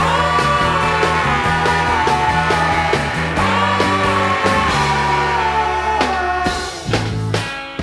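Psychedelic rock band recording playing: bass and drums under a held lead melody line that slides down in pitch twice, the band thinning near the end to a few sharp drum hits.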